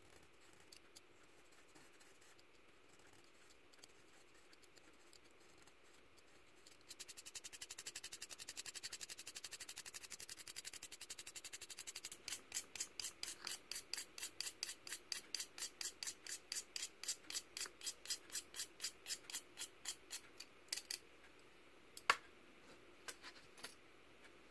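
A pencil's graphite lead being scraped to a fine point with a blade. The scrapes start about seven seconds in as a fast, dense run, then go on as separate strokes at about four a second, and end with a few sharp clicks near the end.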